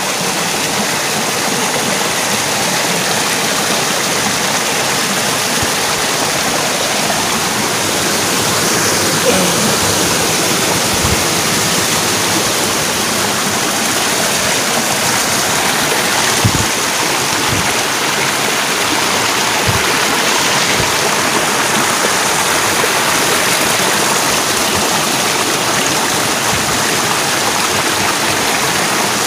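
Steady, loud rush of a fast-flowing river right beside the microphone, with a few soft low knocks around the middle.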